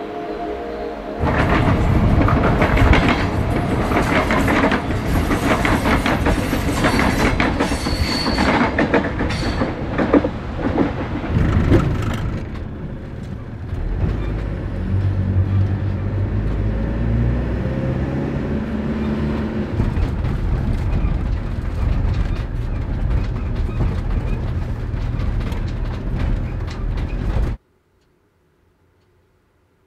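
Campervan driving on a road, heard from inside the cab: road noise with a lot of clattering and rattling. It settles into a steadier, lower engine hum about halfway through and cuts off abruptly near the end.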